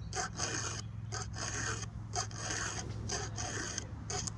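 A hand file rasping across the cutter teeth of a Stihl 362 chainsaw chain in short, even strokes, about two to three a second, as the chain is sharpened.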